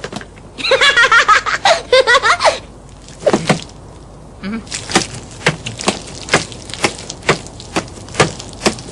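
Cartoon character's babbling laughter, warbling in pitch for about two seconds, then a run of short, sharp vocal catches about twice a second.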